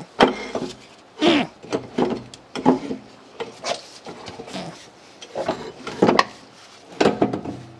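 A 3-horsepower single-phase Baldor electric motor being wrestled out of a metal lathe's base cabinet: a string of clunks, knocks and scrapes as the heavy motor bumps against the cabinet and mounting plate.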